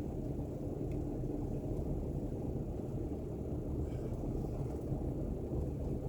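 Car cabin noise while driving slowly on a snow-covered road: a steady low rumble of engine and tyres.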